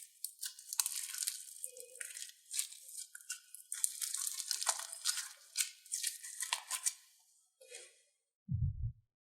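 Slime being squished and pressed, giving runs of crackling, crunching pops that die away about seven seconds in, followed by a short low thump near the end.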